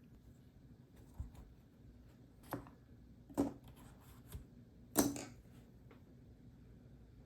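A handful of separate keystrokes on a custom mechanical keyboard with light, short-travel BSUN Bunny linear switches in an aluminium plate, each a sharp clack, spaced about a second apart; the loudest, a little fuller, comes about five seconds in.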